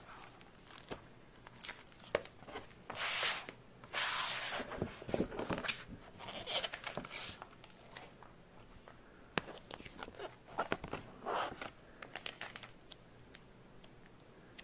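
Glossy magazine pages being handled and turned: paper rustling and crinkling in several bursts, the main run a few seconds in and one more near the end, with scattered light clicks between.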